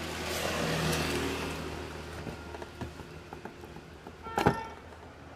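Workshop handling noises: a rush of noise that swells and fades over the first two seconds or so, small ticks, then one sharp ringing clink about four and a half seconds in.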